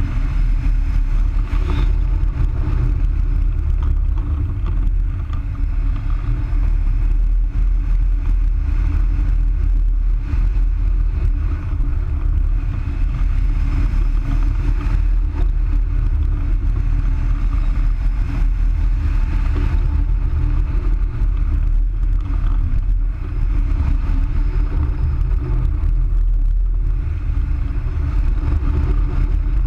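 Airflow rushing over a wing-mounted camera's microphone during hang-glider flight: a steady, loud low rumble of wind noise.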